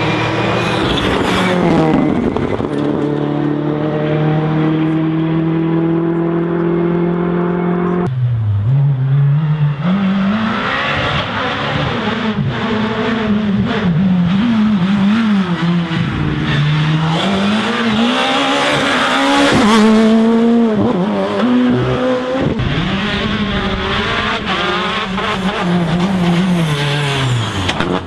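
Rally cars on a special stage: a car's engine note falls away as it passes, then a steady engine note climbs slowly. From about eight seconds in, an engine is worked hard, its pitch repeatedly rising through the revs and dropping at gear changes and lifts for corners.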